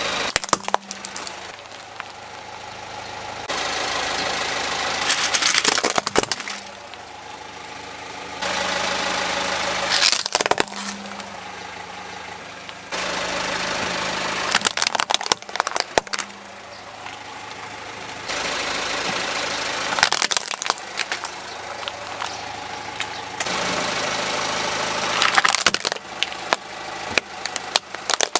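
A car's engine running while its tyre rolls over hard plastic toys, breaking them with clusters of sharp cracks and snaps. The run-and-crush pattern repeats about every five seconds, six times in all.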